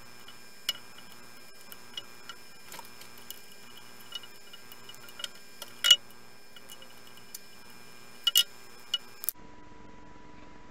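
Scattered light wooden clicks and taps as small cut-out pieces are pushed out of a scroll-sawn wooden letter blank and drop onto the saw's metal table, with a sharper double knock about two-thirds of the way in. Underneath is a faint steady electronic hum that changes abruptly near the end.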